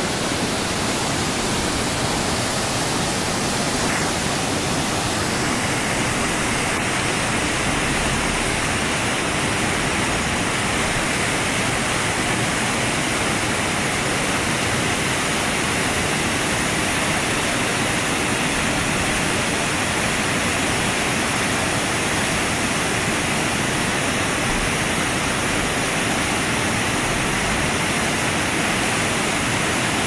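Waterfall and cascades: water pouring over rocks into a pool, a steady loud rushing noise. The rush turns hissier about five seconds in.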